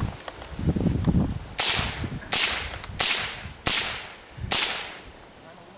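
.22 LR rifle firing five shots in quick succession, about three quarters of a second apart, each a sharp crack with a short fading tail.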